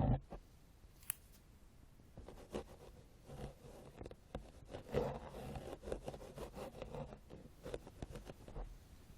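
Ear-cleaning ASMR: an ear pick scraping and rubbing close to the microphone in soft, irregular strokes, with a single sharp click about a second in.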